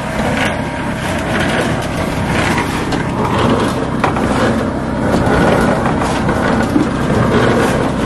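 Concrete mixer's engine running steadily, mixed with the rolling, gritty rattle of a wheelbarrow full of wet concrete being pushed across the deck.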